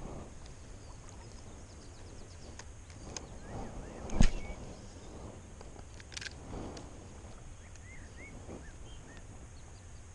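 Handling noise from a spinning rod and reel held close to the camera: scattered clicks and rustles, with one sharp knock about four seconds in. A few faint bird chirps near the end.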